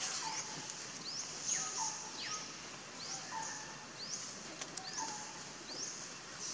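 Birds calling over a steady background hiss: short high chirps that rise in pitch, repeated about once a second, mixed with lower whistles that fall and then level off.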